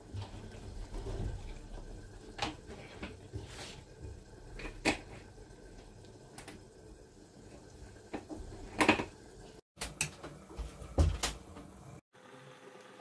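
Oil pouring into a frying pan trails off in the first second or so, then scattered kitchen clicks and knocks follow, the loudest about nine seconds in and a pair near eleven seconds.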